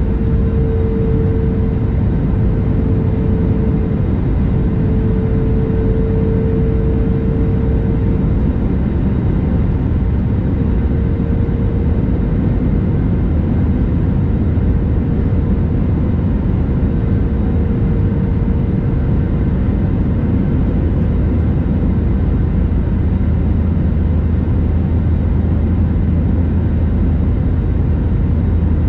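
Steady in-flight cabin noise of an Airbus A320neo: a loud, even rumble of engines and airflow, with a faint steady hum that fades away over the first two-thirds while a deep low hum grows toward the end.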